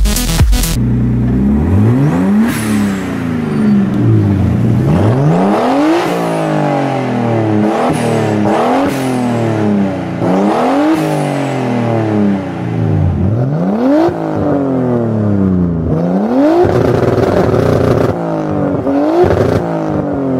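Nissan Silvia engine revved over and over through its exhaust, the pitch climbing and dropping every second or two. Electronic music stops about a second in.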